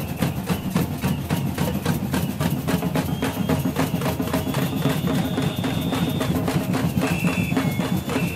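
Protest batucada: bass drums beaten with sticks together with banged pots, lids and metal trays, playing a fast, steady, driving beat.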